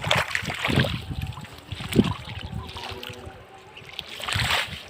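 Shallow floodwater splashing and sloshing in irregular bursts, as of wading and grabbing at fish by hand; busiest in the first two seconds, easing off, then picking up again near the end.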